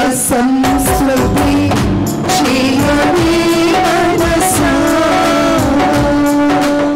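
Two women singing a Telugu Christian devotional song into microphones, holding long notes, with drums keeping the beat.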